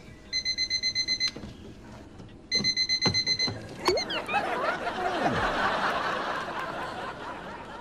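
A mechanical bell alarm clock rings in two short, rapid bursts. About four seconds in it is dunked into a glass of water, and a splash and bubbling follow that fade away slowly.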